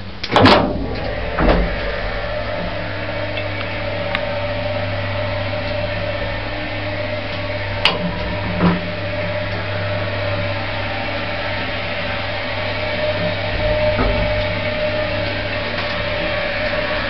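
Original single-speed 1970s Wadsworth lift in use. Two loud knocks sound within the first two seconds, then the car travels with a steady motor hum and a constant whine, broken by a few sharp clicks.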